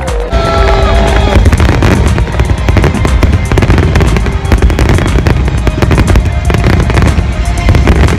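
Large fireworks display in full barrage: a dense, continuous run of overlapping bangs and crackles with a heavy low rumble, music playing underneath.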